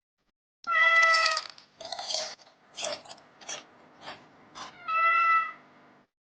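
A cat meowing: a long meow about a second in, a run of short mews, then another long meow near the end.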